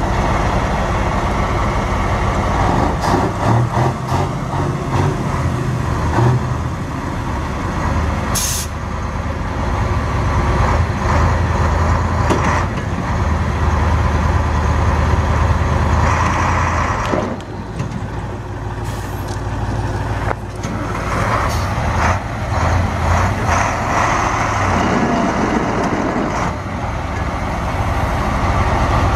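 Two heavy diesel trucks, a KAMAZ and a Ural, running hard under load as they pull against each other on a tow strap, their engine note rising and falling through the pull. A short hiss of air comes about eight seconds in.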